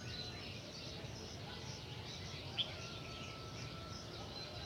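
Outdoor ambience with small birds chirping and a steady faint background hiss. About halfway through there is one short, sharp high sound, the loudest thing heard.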